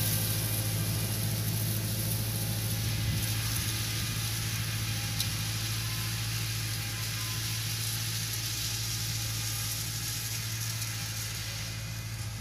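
Kubota L4508 tractor's diesel engine running steadily as it pulls a tillage implement through dry soil, slowly fading as it moves away, with a steady hiss over it.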